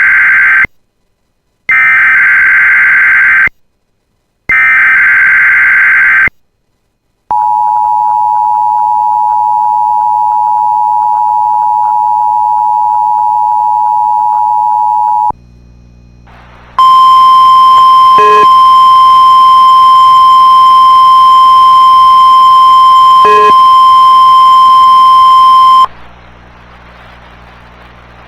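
Start of an Emergency Alert System alert. Three rasping, screeching bursts of SAME header data are followed by about eight seconds of the steady two-tone EAS attention signal. After a short break comes about nine seconds of the single steady NOAA Weather Radio warning alarm tone, with two brief clicks in it.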